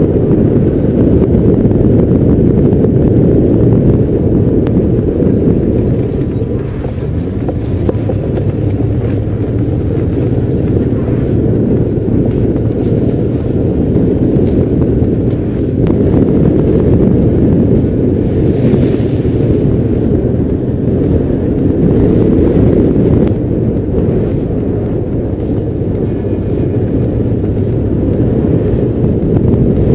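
Honda 750 Africa Twin's V-twin engine running steadily under way on a gravel track, under a heavy, steady rumble of wind buffeting the bike-mounted camera's microphone.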